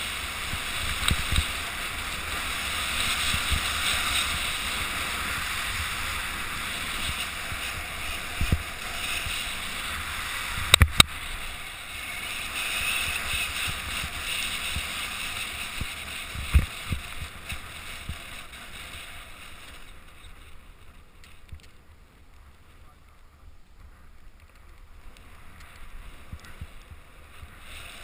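Camera wearer's own riding over snow: a steady hiss of sliding and carving, with wind on the microphone. A few sharp knocks come along the way, one of them doubled about ten seconds in, and the sliding goes quieter for a stretch about two-thirds of the way through before picking up again.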